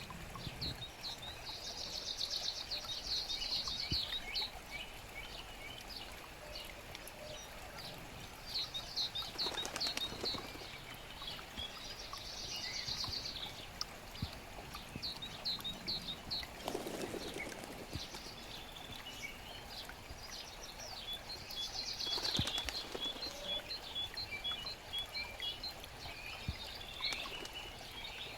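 Songbirds singing over a forest brook: runs of short, high chirps and a fast trill that comes back about every ten seconds, above the steady rush and gurgle of flowing water.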